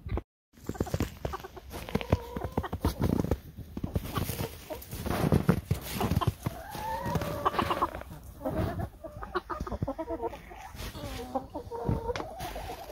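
Flock of chickens clucking and calling in short bursts, with one longer drawn-out call about seven seconds in.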